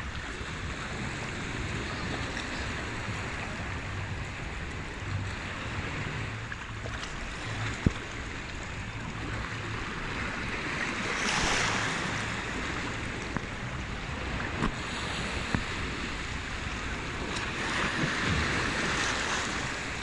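Small sea waves washing in and out over rocks in shallow water, the wash swelling louder about halfway through and again near the end. Low wind rumble runs on the microphone, and a few brief sharp clicks come through, the strongest a little before halfway.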